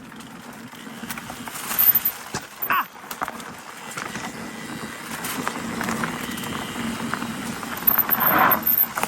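Electric mountain bike being ridden over a rough forest trail: tyres rolling on dirt, with a run of clicks and knocks from bumps and the bike rattling. There are louder surges about two seconds in and again near the end.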